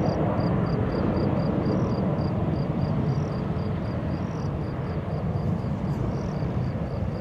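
Distant jet engine noise from a Boeing 737-300's CFM56 turbofans as the airliner rolls along the runway, a steady rumble that slowly fades. A faint high chirp repeats about four times a second throughout.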